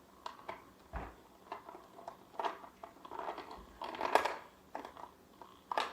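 Small plastic toy figures being handled: scattered clicks, taps and rustles, with a louder bout of handling noise about four seconds in.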